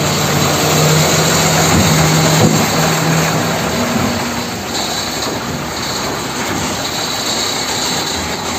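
Steady engine-like vehicle running noise, with a low hum that fades out about three seconds in.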